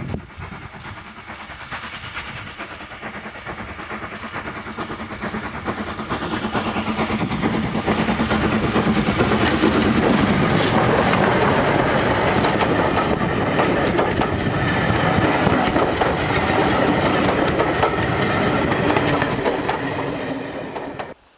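Steam-hauled passenger train approaching and passing close by, the coach wheels clattering over the rail joints. The sound builds for several seconds, stays loud while the train goes past, then fades and cuts off near the end.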